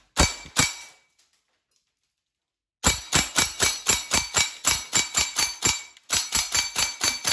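GHK gas blowback airsoft rifle (T91 build) firing strings of rapid shots at about five a second, each a sharp metallic clack of the bolt cycling. About fifteen shots come, then a short break, then about nine more. Firing stops as the magazine runs dry and the bolt holds open, the last-round bolt catch working normally.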